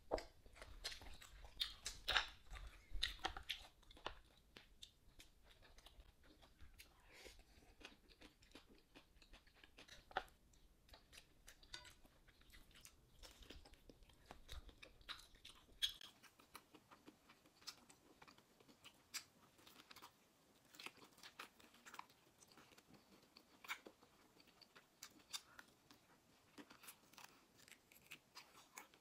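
A person chewing and biting food close to the microphone, faint, with many small crunches and wet mouth clicks; the bites are loudest in the first few seconds.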